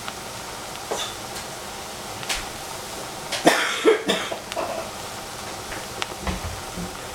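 A person coughing twice, about halfway through, over a steady hiss from a saucepan of vegetables cooking on a gas burner. A few faint clicks come earlier, and a low thud near the end.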